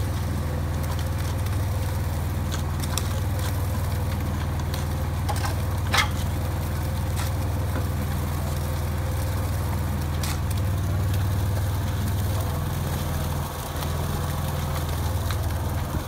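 Engine of a Cormidi C85 tracked dumper with self-loading concrete mixer, running at a steady idle while the mixer drum turns. There is a single sharp knock about six seconds in.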